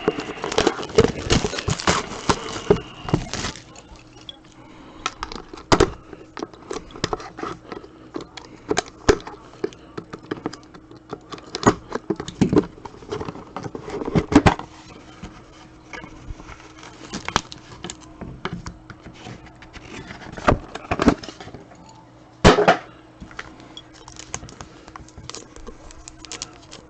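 Trading-card boxes and their packaging being handled and worked open: irregular clicks, taps and crinkles, busiest in the first few seconds, with one sharper knock later on.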